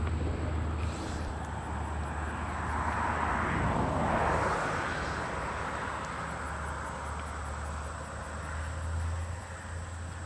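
Road traffic going by: a steady low rumble, with one vehicle passing close that swells up and fades away about four seconds in.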